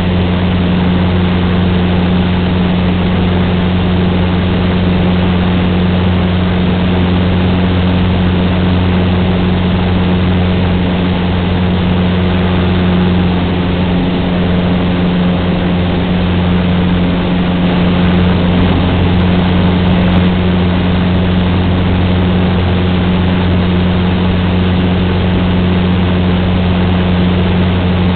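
Cessna 150's Continental O-200 four-cylinder engine and propeller running steadily with an even, unchanging drone.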